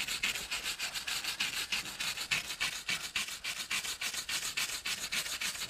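Wire brush scrubbing a poured concrete wall in rapid, even back-and-forth strokes: cleaning paint and loose concrete from beside a crack to prepare it for injection repair.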